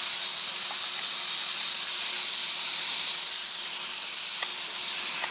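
Paint spray gun spraying stain onto wooden siding: a loud, steady hiss of atomised spray.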